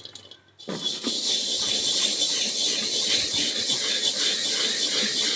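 Wire scourer scrubbing burnt-on crust inside a frying pan: a continuous scratchy scrubbing that starts just under a second in. The crust is thick and hard to shift.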